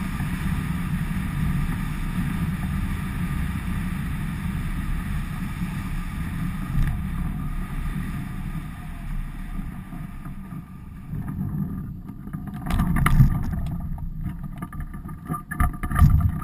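Airflow rushing over the microphone of a camera mounted on an Icaro RX2 rigid-wing hang glider, steady through the glide and fading as the glider slows for landing. In the last few seconds come knocks and thumps as the pilot touches down on his feet and the wing's frame jolts.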